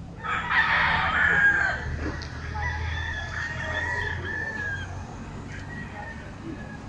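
A rooster crowing: a loud call starting just after the beginning, with a long wavering final note that trails on for several more seconds.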